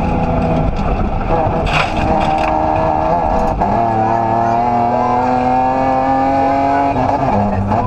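A BMW M3 rally car's engine pulling hard under load, heard from inside the cabin. Its pitch holds fairly level, breaks briefly a little over three seconds in, then climbs steadily for about three seconds before dropping near the end: the engine revving up through the gears between gear changes.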